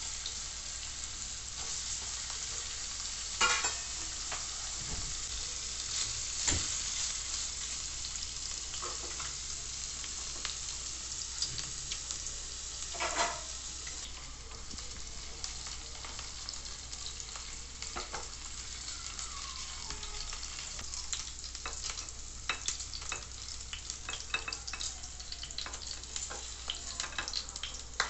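Paneer cubes shallow-frying in olive oil in a frying pan: a steady sizzle, broken by a few sharp knocks. Small crackles and taps come more often over the last several seconds.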